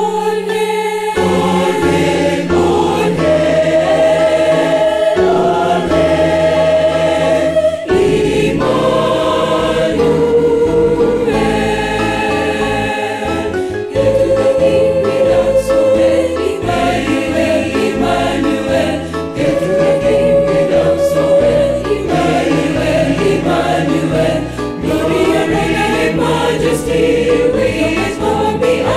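Mixed-voice church choir singing a hymn in harmony, with sustained held notes.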